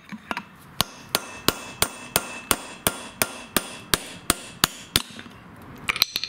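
Hammer striking a steel pin punch in steady blows, about three a second, driving the old bushing out of a lawn tractor's front wheel hub. The blows stop about five seconds in, and a short clatter follows near the end.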